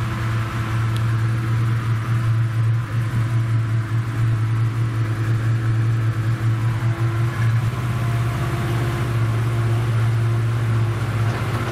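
ATV engine running steadily at low riding speed, a continuous low drone.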